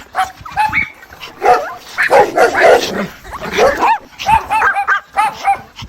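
Mother dog calling her puppies with a rapid string of short, high-pitched whines and yips, with a denser run of lower, overlapping calls about two to three seconds in.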